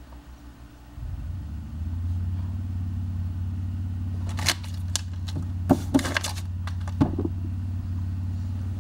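A steady low mechanical hum starts about a second in, with a few short crinkles and clicks of card pack wrappers and cards being handled over it.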